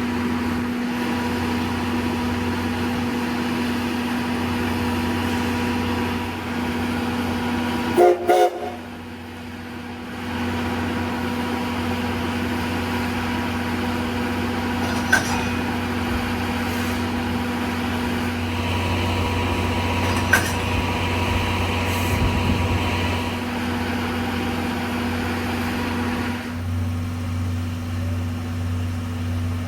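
A train standing with a steady mechanical hum. About eight seconds in comes a short double toot of its horn.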